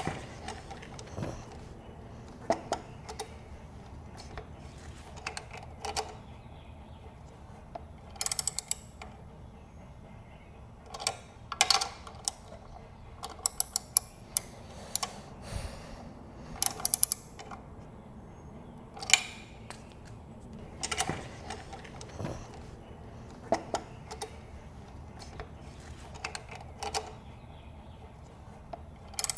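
Hand tools and small metal parts clicking and clinking during engine reassembly, in short scattered runs of sharp clicks, some quick and rattly.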